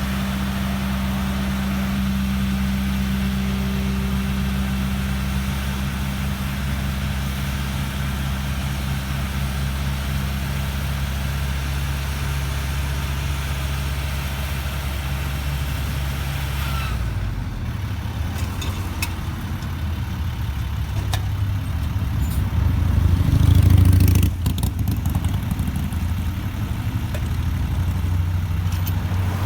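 Engines of road-repair machinery running steadily. About seventeen seconds in, the sound changes to a lower engine hum, which grows loudest briefly around twenty-three to twenty-four seconds.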